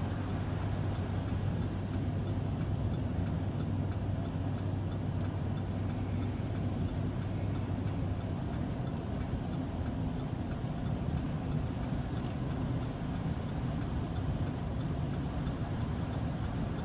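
Steady engine and road noise of a truck driving at low speed, heard inside the cab. Its low hum shifts about halfway through, and a faint regular ticking runs underneath.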